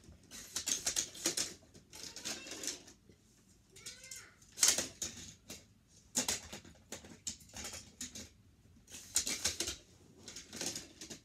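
Die-cast Hot Wheels toy cars clattering as they are picked through and handled in a pile: bursts of small rattling clicks in several groups a second or two apart, the loudest about halfway through.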